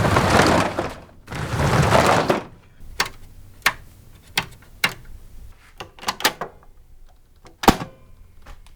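Sounds made at a microphone during a test recording: two long rushing hisses, each about a second, followed by a string of about a dozen sharp clicks and knocks, the loudest one near the end.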